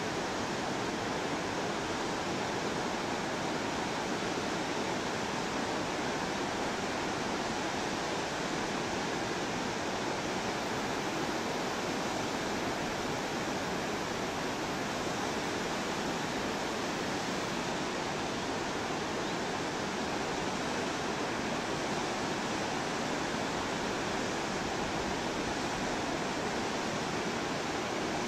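Steady, unbroken rush of the Ganga's headwater river, the Bhagirathi, a fast glacial torrent tumbling over boulders.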